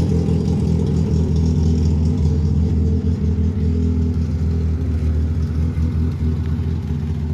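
VAZ-2108 (Lada Samara) four-cylinder engine running steadily with an even note.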